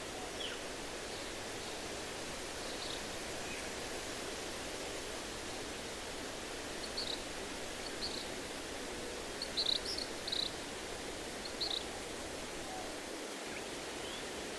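Steady rushing hiss of wind in the trees, with a few short, high bird chirps in the second half, several close together about ten seconds in.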